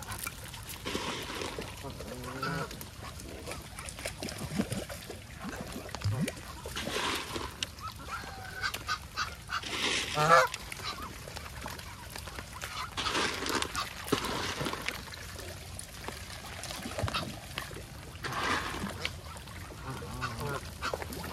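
Geese honking: short calls now and then, the clearest about two and a half seconds in and a louder one about ten seconds in.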